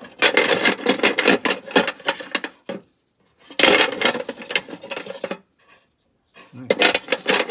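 Small plumbing fittings clattering and clinking as a box of them is rummaged through by hand, in three bursts of a couple of seconds each.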